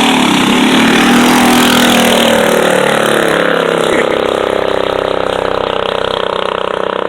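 Mini bike engines running hard at full throttle during a drag race. The pitch wavers and drops in the first few seconds, then holds higher and steadier.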